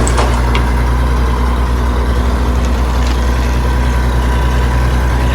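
Tractor engine idling steadily, a low even hum with a few faint clicks about half a second in.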